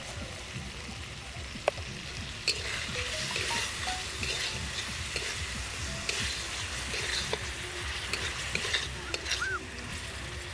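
Chutney sizzling in a pan as it is stirred with a spoon, the sugar just added and starting to draw out its juice. The spoon clicks sharply against the pan a few times, the loudest about two seconds in.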